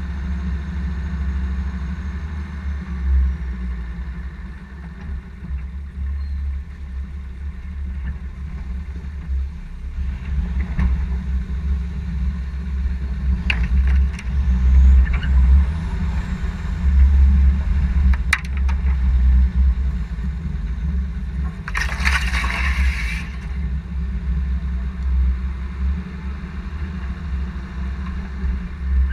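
Old Range Rover driving slowly over a rough forest track, its engine and drivetrain a steady low rumble. A few sharp knocks come through in the middle, and there is one brief harsh rasp about two-thirds of the way through.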